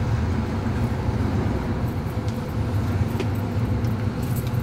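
Steady low rumble of a car in motion, heard from inside the cabin, with a few faint clicks.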